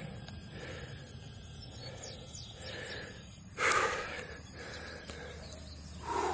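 A man breathing hard after running, with one louder gasping breath about three and a half seconds in. A few faint high bird chirps are heard around the middle.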